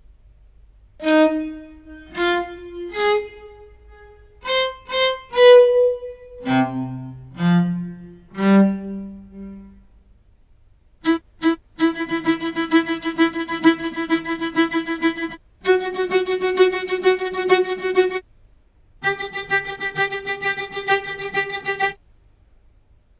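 Sampled fiddle-like string instrument from the Chronicles Bukhu Kontakt library: first a run of single notes at shifting pitches, each dying away, then two quick short strokes and three long held notes played with fast repeated strokes. After the third held note the sound stops near the end.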